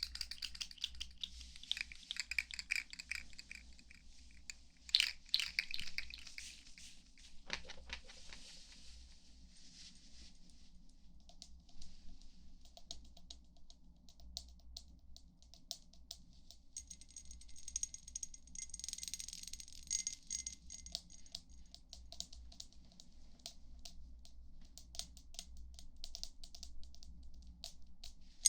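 Close-miked ASMR trigger sounds: crinkling, scratchy handling noise with sharp clicks for about the first ten seconds, then quick light taps and clicks. Several high ringing tones come in a little past the middle and fade after a few seconds.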